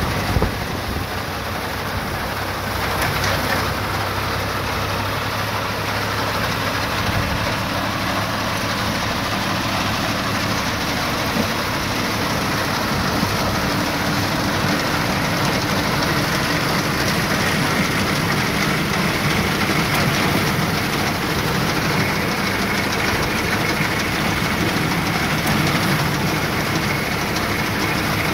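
Tractor-mounted, PTO-driven Yapel DG-140 reaper-binder working through standing grain: the tractor engine and the machine's cutter bar and binder run with a steady, dense mechanical noise.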